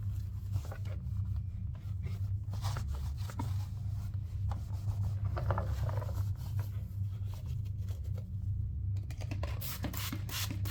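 Cloth wiping and rubbing over the plastic body of a Henry vacuum cleaner, in short irregular scraping strokes that come faster near the end, over a steady low hum.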